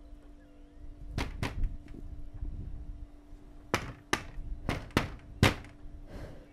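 Seven sharp impacts at irregular intervals, mostly in pairs, the last the loudest, over a steady low hum.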